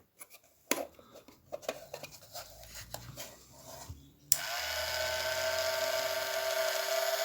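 Battery-powered Weber rotisserie motor running on two D-cell batteries: a steady electric whine that starts suddenly a little past halfway. Before it come scattered clicks and light handling knocks.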